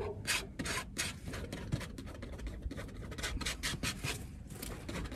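Palette knife scraping paint across a canvas in quick repeated strokes, several a second.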